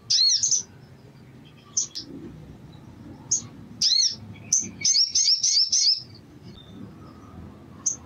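Male olive-backed sunbird calling with sharp, high chirps: a burst at the start, a few single calls, then a fast run of chirps for about a second and a half near the middle.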